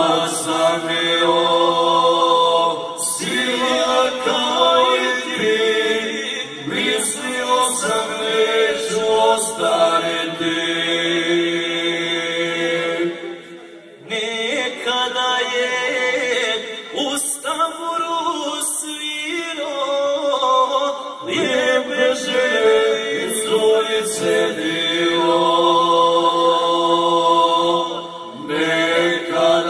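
Three male voices singing unaccompanied in close harmony, Krajina folk style, drawing out long held notes. The phrases break off briefly about 13 seconds in and again near the end.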